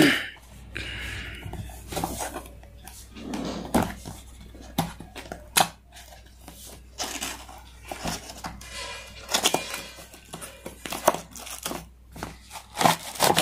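Hands handling and opening a small cardboard product box: irregular rustling, crinkling and tearing of cardboard and packaging, with sharp taps and knocks.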